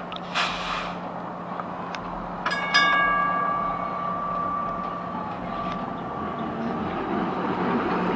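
The gong of Birney streetcar 163 is struck twice in quick succession and rings out, fading over about four seconds. Under it is the car's steady low hum as it rolls past on the rails, and a short hiss comes just before the gong.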